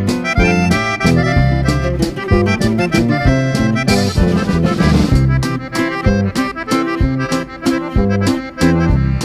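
Accordion-led music with bass notes and a steady percussive beat.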